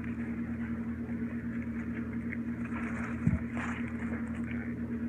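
A steady motor hum with an even, regular pulse, and a few faint clicks and a brief soft sound a little over three seconds in.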